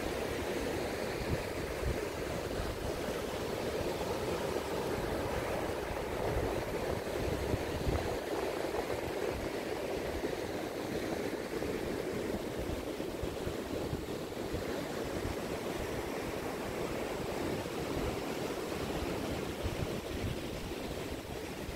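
Steady wash of ocean surf breaking on a sandy beach, with an irregular low rumble of wind on the microphone.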